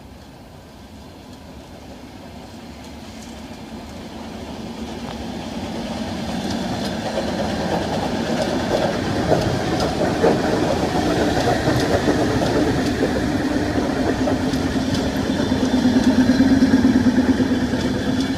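An ER9M electric multiple unit pulls into the platform, its rumble growing steadily louder as it approaches and passes close by. There are a few clacks over rail joints about halfway through, and a steady low hum builds up and is loudest near the end.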